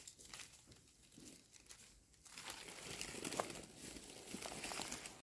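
Dry leaf litter and grass rustling and crinkling faintly under hands working at the forest floor, with a few small clicks. It grows louder from about two seconds in.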